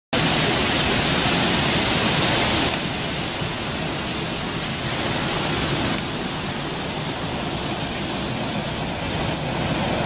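Steady rushing of a forest waterfall plunging onto rocks and into a shallow stream. The level drops abruptly about a quarter of the way in and again just past the halfway mark.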